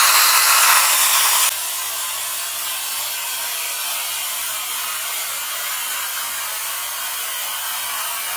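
Compressed air from an air hose hissing as it blows air and water through a refrigeration oil separator's inlet pipe and mesh strainer. The hiss is louder for about the first second and a half, then settles to a steady, slightly lower level.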